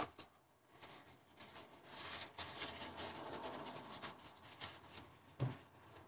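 Small plastic heater knobs handled and set down on a workbench board: a few light clicks and knocks over faint rustling.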